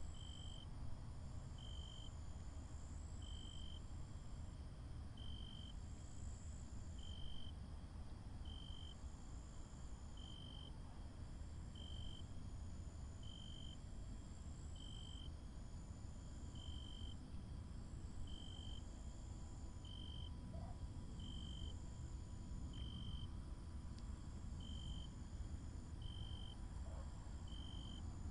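Insects chirping over a steady low rumble: one short, even chirp about every one and a half seconds, with irregular higher-pitched chirps above it.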